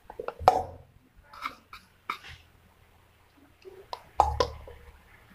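Cubes of softened butter tipped from a small plastic bowl into a stainless steel mixing bowl: a handful of separate soft knocks and clatters, the loudest about half a second in and another pair about four seconds in.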